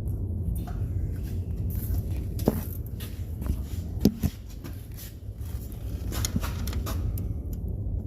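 Metal hand tools clicking and clinking as wrenches and sockets are handled and fitted on bolts, with a couple of sharper metal knocks, over a steady low hum.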